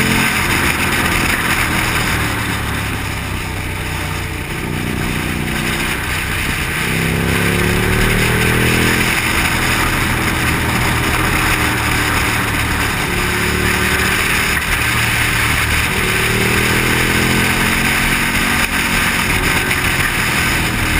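Motorcycle engine running under load, its pitch climbing, falling back sharply about nine seconds in and climbing again near the end, under a steady rush of wind.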